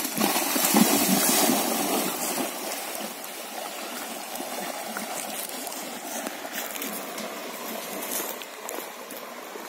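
A horse wading into a river, its legs churning and splashing the water, loudest for the first couple of seconds as it strides in, then settling into a steadier swishing as it wades on.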